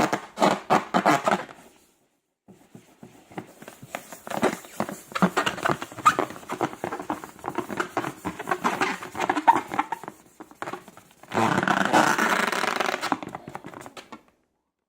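Slime being squished and worked by hand: bursts of wet crackling and clicking with short pauses between them.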